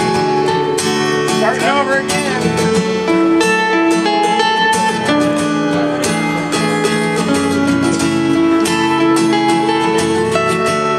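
Acoustic guitar strummed through a song's instrumental intro, chords ringing in a steady rhythm.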